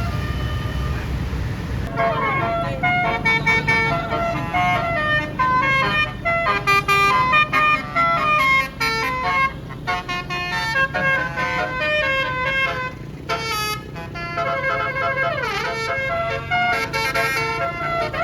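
A bus's Basuri 'telolet' multi-trumpet air horn playing a fast tune of stepped notes, often several at once, starting about two seconds in after a low engine rumble. Near the end one note swoops down and back up.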